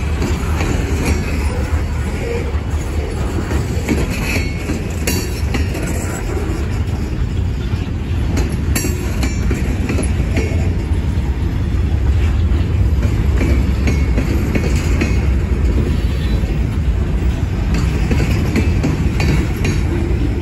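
Freight train cars rolling past on the rails: a steady low rumble of wheels on track with scattered clicks and clanks as the wheels cross rail joints.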